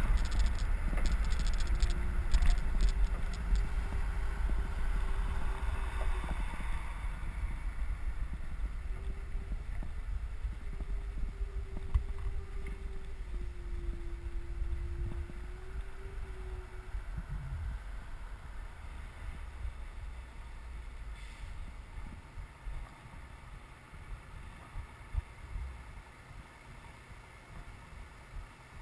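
Wind rushing over the microphone and road noise from a bicycle riding along a paved road, a low rumble that gradually gets quieter as the ride slows. A faint steady hum runs under it for the first half and then dies away.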